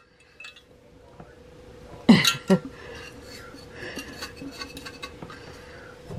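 Granulated sugar poured from a glass jar onto chopped rhubarb in a ceramic mixing bowl: a soft, gritty trickle, with two louder knocks about two seconds in. A faint steady hum runs underneath.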